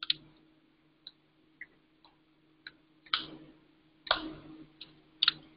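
Scattered computer keyboard and mouse clicks, about nine sharp clicks at an uneven pace, made while editing code to uncomment lines. A faint steady hum runs underneath.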